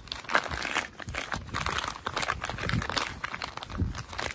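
A plastic pet glove-wipe pouch crinkling and crackling irregularly as it is kneaded by hand, working the cleansing solution into the dry glove inside.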